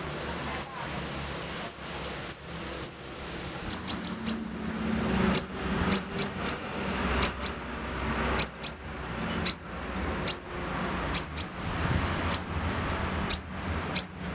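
Sogon bird giving a series of short, sharp, high chirps, each a quick downward-slurred note, some single and some in quick runs of two to four: the harsh 'nembak kasar' calling.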